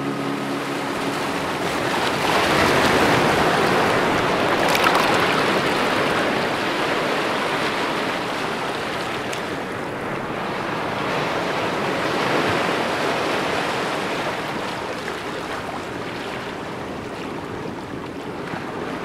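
Surf washing onto a shore: a steady rush of water that swells and eases a couple of times, then fades away at the end.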